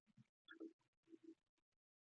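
Near silence, with a few faint, short soft sounds.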